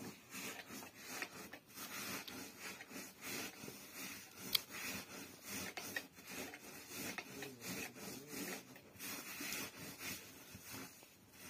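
Hands rubbing and mixing a heap of rice with black charred rice-husk: an irregular, repeated dry scratchy rasp, with one sharp click about four and a half seconds in.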